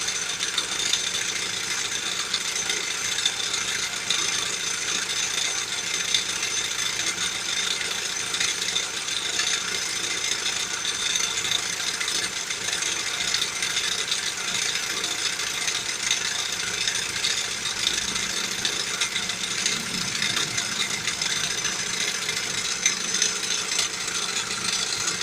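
Machine running with a steady fine rattle from the pump's loose friction drive wheel, which hangs clear of the pump pulley and shakes.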